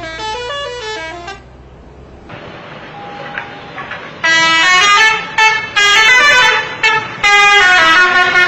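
Bus 'telolet' multi-tone musical horn playing a quick tune of stepping notes that stops about a second and a half in. After a few seconds of background noise, the horn sounds again in loud blasts of several tones at once, broken by short gaps.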